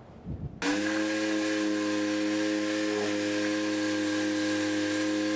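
Random orbital sander running steadily, sanding filler and primer on a car body panel. It starts abruptly about half a second in, under background music holding a sustained chord.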